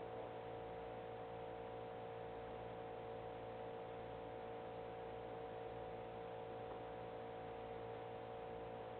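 Steady electrical hum with a few constant faint tones over a low hiss, and no knocks or thuds.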